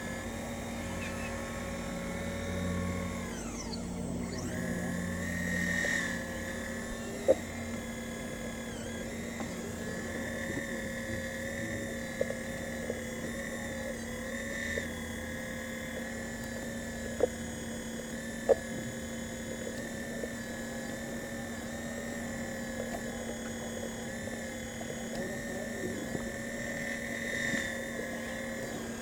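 Radio-controlled scale model CAT 5110B hydraulic excavator working: the steady whine of its hydraulic pump, the pitch dipping and rising as the boom and bucket move under load. A few sharp clicks about seven and seventeen seconds in, and again soon after, are the loudest sounds.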